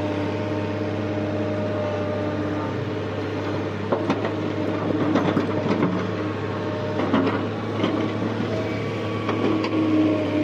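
JCB JS175 excavator's diesel engine running steadily under working load, heard from the operator's cab. A spell of rattles and knocks comes from about four seconds in, while the loaded bucket swings over to the truck and empties.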